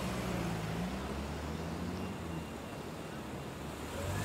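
Steady car engine and road noise, a low hum.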